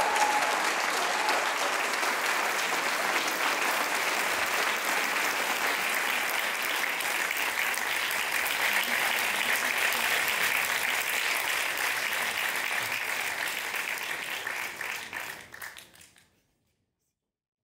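Audience applauding steadily, fading out about fifteen seconds in and ending in silence.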